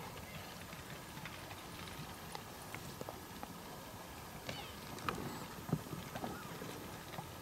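An elk herd on the move: scattered hoof clatters, bunched about five seconds in, and a few short high mews from cow elk, all faint.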